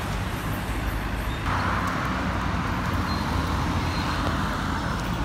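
Road traffic on a busy city road: engines running and vehicles passing in a steady low rumble, with a louder hiss setting in about a second and a half in.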